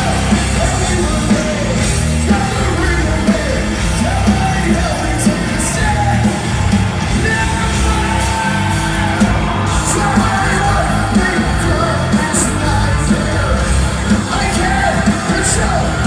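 Alternative metal band playing live and loud, with electric guitars, bass and drums under a singer's voice.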